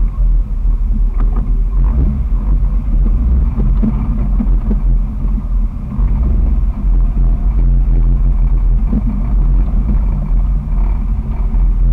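A 2001 Jeep Wrangler TJ's 4.0-litre inline-six drives at trail speed. With the muffler deleted, its exhaust makes a loud, steady low drone.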